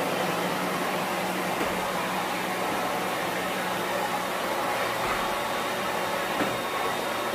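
Canister vacuum cleaner running steadily: a constant motor hum under a rush of air.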